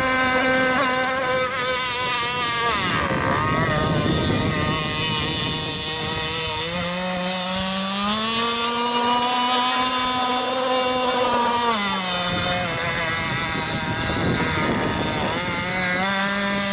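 27cc two-stroke petrol engine of a radio-controlled boat running, its pitch dropping and rising several times as the throttle is eased and opened, with a high steady stretch in the middle.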